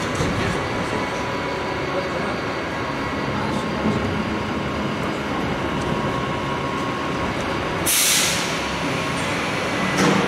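Steady city street noise of passing traffic, with a short hiss about eight seconds in.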